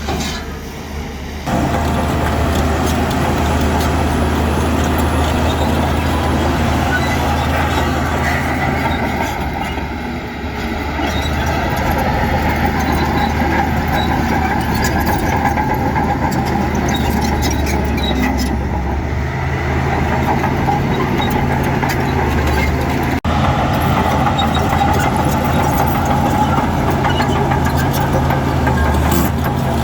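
Heavy diesel engine of earth-moving machinery running steadily with a deep hum, with an abrupt break about 23 seconds in.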